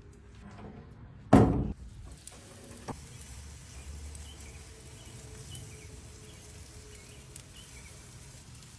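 A single heavy thump about a second and a half in, then faint steady low background noise.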